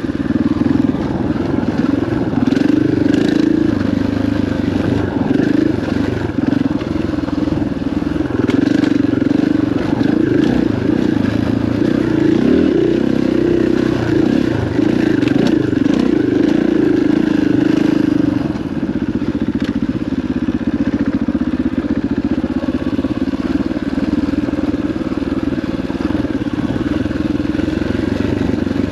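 KTM enduro dirt bike's engine running under varying throttle as it rides a dirt trail, easing off about two-thirds of the way through, with scattered clatter and knocks from the bike over rough ground.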